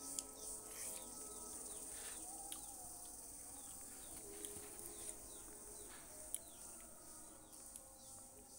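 Faint steady high-pitched insect chirring, with a few soft clicks and faint wavering tones underneath.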